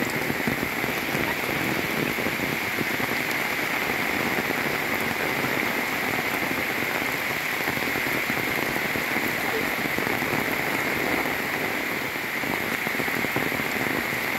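Heavy rain falling steadily and evenly, hitting the umbrella held just overhead as well as the surrounding foliage and muddy path.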